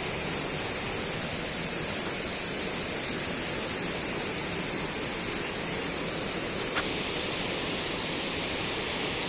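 Waterfall rushing steadily, a continuous roar of falling water; it eases slightly about seven seconds in.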